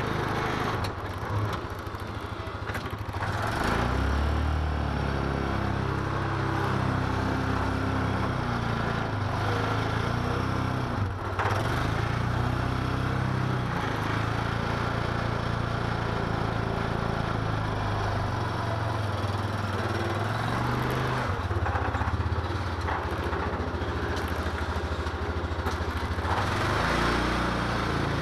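Yamaha Rhino UTV's single-cylinder engine running under load while pushing snow with a front plow blade, its pitch rising and falling repeatedly as the throttle is worked.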